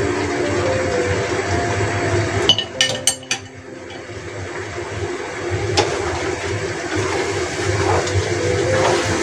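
Liquid bubbling in a stainless wok as fried tofu pieces are tipped in. There is a short run of sharp clicks and knocks about two and a half to three seconds in, then the bubbling builds again.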